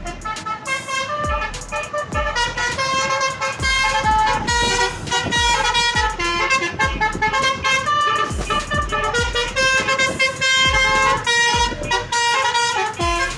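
A bus's basuri telolet horn, a set of multi-trumpet air horns, playing a melody of stepping notes, often several at once, with a steady low thump keeping a beat underneath.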